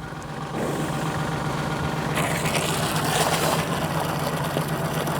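A steady low mechanical hum with a rushing noise over it; the rushing swells for about a second and a half near the middle.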